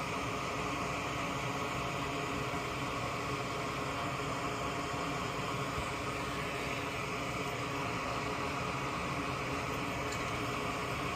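Fume-extraction vent fan running steadily, drawing off solder and flux fumes, an even whooshing hum.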